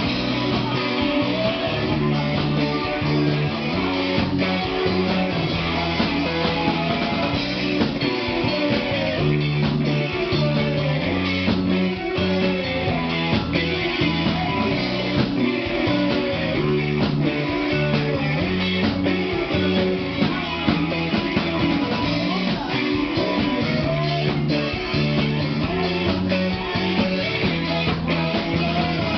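Rock band playing live: electric guitars strummed over a drum kit, loud and steady throughout.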